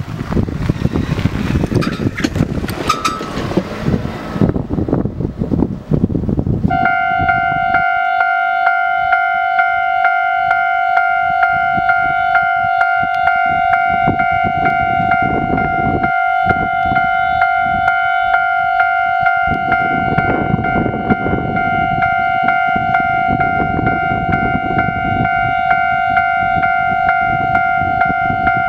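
Railway level crossing alarm ringing, a steady electronic tone pulsing in an even beat, warning of the approaching train. It starts about a quarter of the way in, after a few seconds of wind noise on the microphone.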